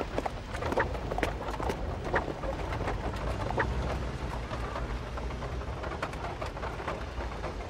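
Busy background ambience: a steady low rumble and hiss with many small clicks and knocks scattered through it.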